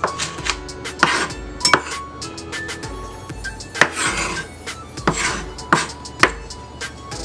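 Chef's knife chopping vegetables on a wooden cutting board: irregular sharp knocks of the blade on the wood, over background music.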